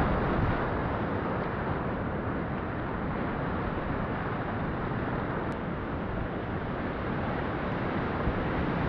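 Steady rushing of whitewater river rapids heard from a kayak in the current, swelling slightly near the end.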